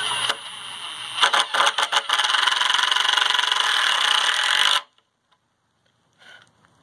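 Milwaukee M18 brushless impact driver driving a screw into a pine board: a short spin, a few quick trigger bursts, then about two and a half seconds of continuous impacting that cuts off suddenly.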